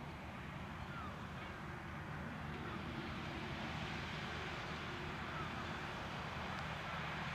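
Farm tractor's diesel engine running steadily in the field, with no change in speed.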